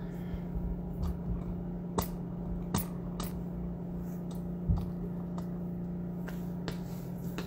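A steady low hum under a scattering of light clicks and taps, the loudest about two-thirds of the way in. The clicks are typical of a phone being handled and tapped close to its microphone.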